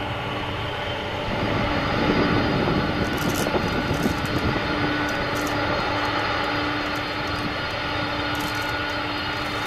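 Boeing 767-300 jet engines running at low taxi thrust: a steady rushing whine with a few held tones. It swells slightly louder about two seconds in, then settles.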